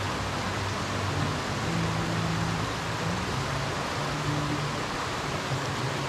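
Waterfall rushing steadily, with soft background music under it, its low notes changing every second or so.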